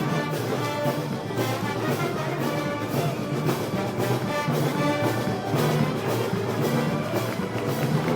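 Brass band with percussion playing Moros y Cristianos festival march music: sustained brass chords over a steady drum beat.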